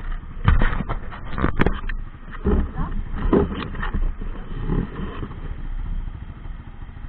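Off-road buggy engine running low and steady, under irregular knocks and thumps, with faint voices.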